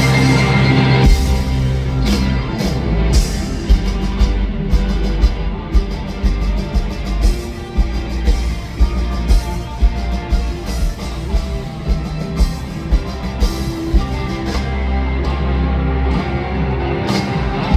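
Live rock band playing loudly: electric guitars and drums in a song's closing instrumental section. A held chord gives way to a long run of sharp accented hits about two a second, then another held chord and a last hit near the end.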